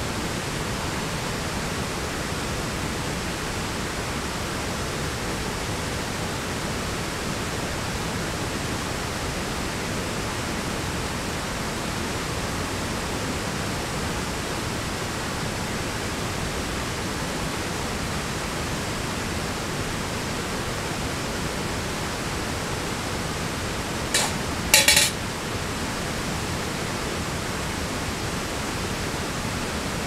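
Steady rushing of a mountain stream, an even noise, with two brief sharp clicks close together about 24 seconds in.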